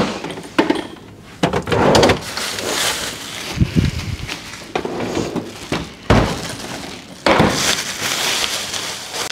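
A French-door refrigerator being opened and shut, with knocks and a heavy thump about six seconds in, and a plastic bag crinkling near the end.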